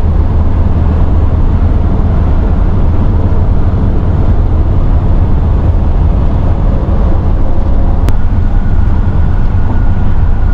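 Vintage Leisure Travel Van camper van driving on the highway: steady road and engine noise with a heavy low rumble, and a single sharp click about eight seconds in.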